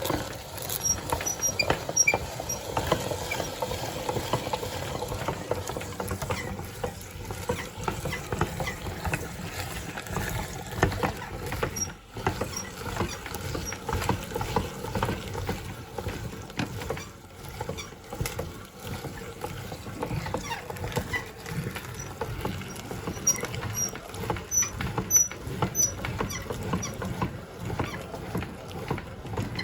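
Meat grinder working ice cream through: a continuous low hum under dense, fine crackling and ticking.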